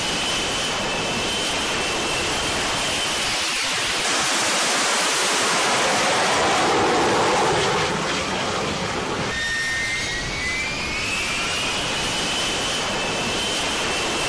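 F-35B Lightning II's jet engine running loud, with a high whine that rises in pitch and then holds. A louder rush in the middle stops abruptly about eight seconds in, and the whine rises again shortly after.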